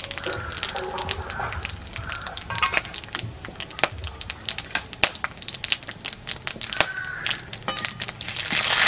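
Whole spices (dried red chillies, cumin, star anise, cardamom, cloves, cinnamon) frying in hot oil in a kadai, crackling with many sharp pops. Near the end they are stirred with a spatula and the frying swells into a loud, steady sizzle.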